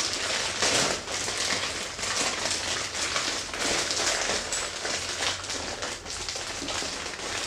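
A clear plastic packaging bag crinkling and rustling continuously as it is handled.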